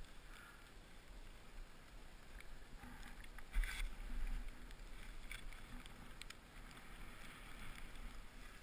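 Deep powder snow hissing and swishing under a rider gliding through the trees, with a louder muffled rush and thump about three and a half seconds in.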